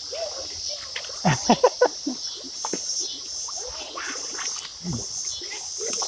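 A steady high chorus of insects chirring over the creek. Between one and two seconds in, a short run of louder, sharp sounds cuts through.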